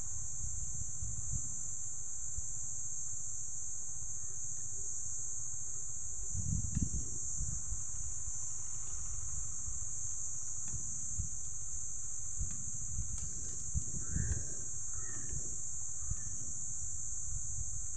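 Steady, high-pitched drone of insects, over a low rumble that swells briefly about six seconds in and again near fourteen seconds.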